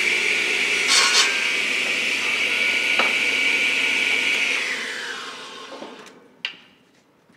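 Benchtop electric woodworking machine running at speed with a steady high whine and a couple of knocks. About four and a half seconds in it is switched off and winds down, its pitch falling, and a sharp click follows near the end.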